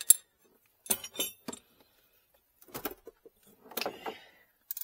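Scattered short metallic clicks and clinks in a few small clusters, from hand tools and metal battery fittings being handled during removal of a car battery.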